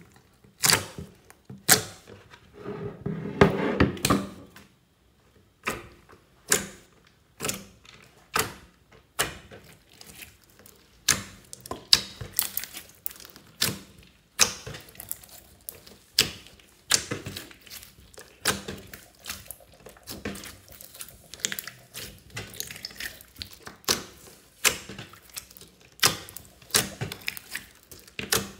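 Clear slime loaded with beads and foam balls being pressed and squeezed by hand, giving sharp wet pops and clicks, about one or two a second, with a longer squelching stretch a few seconds in.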